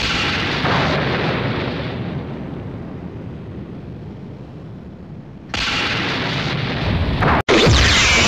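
Explosion-like sound effects: a sudden rumbling blast that fades slowly over about five seconds, then a louder rushing surge cuts in about five and a half seconds in, with a sweeping whoosh near the end.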